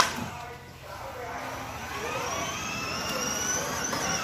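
Children's electric ride-on quad bike: a sharp click, then a whine of several tones that rises in pitch over a couple of seconds as the toy drives along.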